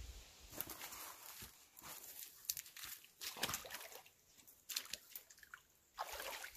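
Footsteps of someone in rubber boots picking through dead brush and shallow pond water: dry sticks crunching and snapping underfoot and water sloshing, in irregular steps with pauses between them.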